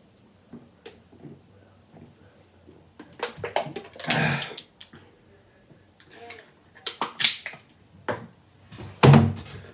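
A man shotgunning a can of beer: soft gulping for about three seconds, then loud breathy gasps and exhales after finishing, with the empty aluminium can being handled and knocked now and then.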